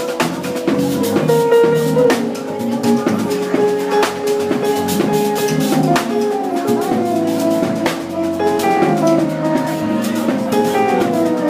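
Live jazz trio playing: electric keyboard, electric bass and drum kit, with keyboard runs stepping down in pitch over steady drumming.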